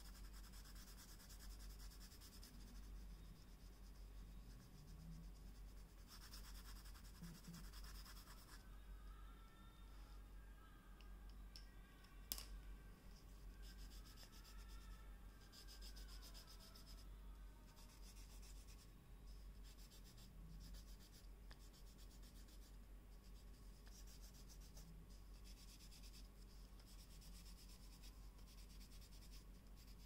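Coloured pencil scratching faintly on paper in quick back-and-forth shading strokes, with one sharp click about twelve seconds in.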